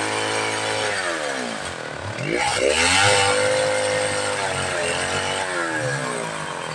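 Two-stroke chainsaw running at high revs. Its pitch sinks about a second in, climbs back with a burst of hiss, holds, then sinks again near the end.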